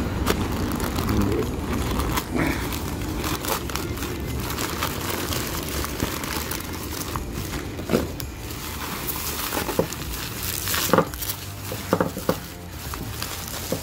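A plastic mailer bag being torn open and bubble wrap pulled off and crinkled by hand: a continuous crinkling rustle with scattered sharp crackles, several of them in the second half.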